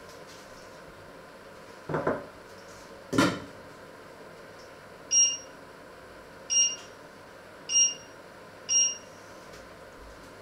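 Two knocks, then four short, high electronic beeps about a second apart from an electric stove's touch controls as it is set.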